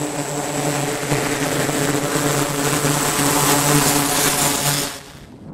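Twin turboprop engines of an E-2 Hawkeye running: a loud, steady propeller drone with a steady high whine over it. The sound cuts off about five seconds in.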